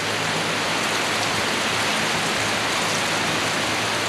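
Steady rain falling, an even hiss of rain on surfaces, with a faint low hum underneath.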